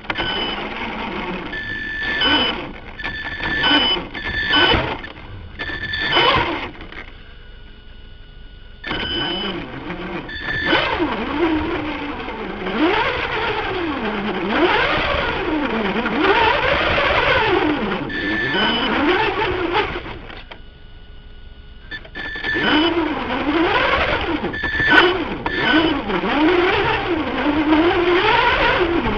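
Radio-controlled car's drive motor and drivetrain, heard from on board the car. First come about five short throttle blips. Then come longer runs whose whine rises and falls in pitch as the car speeds up and slows, with a brief pause a little after two-thirds of the way through.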